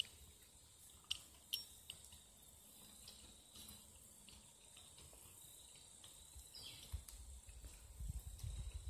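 Faint field ambience: a steady high insect trill with a few scattered small clicks, joined from about seven seconds in by an uneven low rumble.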